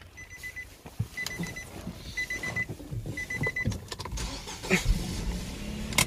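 Short runs of rapid electronic beeps about once a second, then a Nissan's engine cranks and catches about four seconds in and settles into a steady idle. The car is being started on a power-bank jump starter because its battery is flat.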